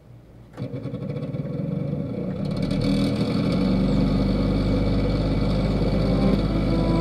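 Instrumental intro of a song: a low, sustained drone with higher held tones over it. It comes in about half a second in, grows louder for about three seconds, then holds steady.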